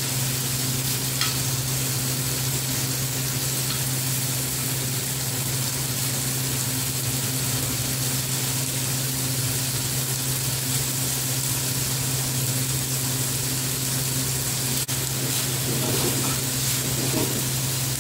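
Chicken pieces sizzling as they fry in a pan, turned and stirred with a metal fork, with a sharp tick on the pan about fifteen seconds in. A steady low hum runs underneath the sizzle.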